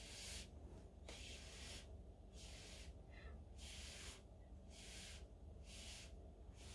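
Faint breathing close to the microphone, a soft hissing swell about once a second, over a low steady hum.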